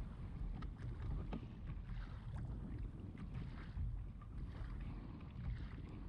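Wind buffeting the microphone in a steady low rumble, with small choppy waves slapping and splashing against the hull of a plastic fishing kayak.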